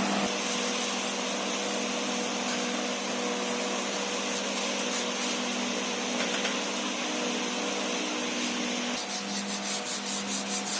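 Electric polishing machine running against a car's paintwork: a steady motor hum under a rubbing, sanding-like noise. Near the end the rubbing turns rhythmic, about three strokes a second.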